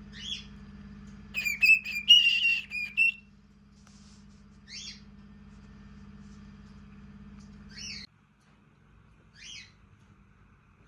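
Cockatiel giving short chirping calls every few seconds, with a louder flurry of whistled chirps between about one and three seconds in. A low steady hum underneath cuts off suddenly about eight seconds in.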